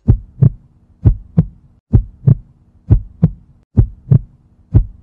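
Heartbeat sound effect: paired low thumps, lub-dub, repeating about once a second, six times, over a faint steady hum.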